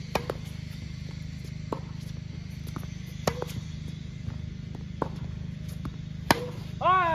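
Tennis rally: a ball is struck by racket strings and bounces on a hard court, giving sharp pops every second or so. The loudest pop comes near the end, from a close topspin forehand hit with a Babolat Pure Aero racket. Right after it comes a short pitched sound that falls in pitch.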